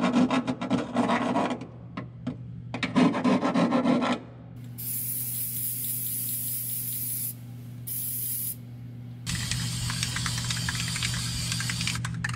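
A metal file rasping back and forth on the sheet-metal edges of freshly drilled holes, deburring them, in two runs of quick strokes with a short pause between. After that an aerosol can of rust-preventive spray paint hisses in three bursts: two short ones, then a longer one.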